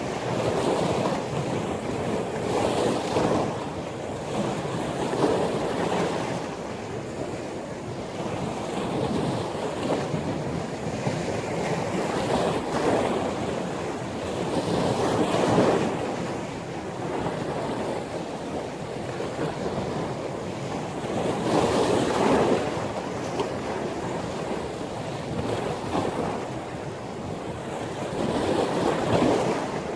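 Rough sea in a windstorm: waves surging and breaking, with wind buffeting the microphone. The surf swells up loudly every few seconds, strongest around 15 and 22 seconds in.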